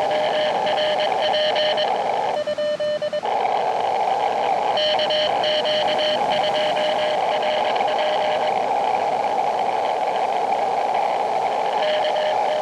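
Morse code (CW) from an Elecraft KX2 transceiver: a single steady tone keyed on and off in dots and dashes over the receiver's band hiss. About two and a half seconds in, the hiss cuts out for under a second while the tone keeps keying alone.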